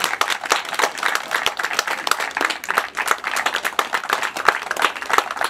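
Applause from a small crowd, many hands clapping at once in a dense, irregular patter.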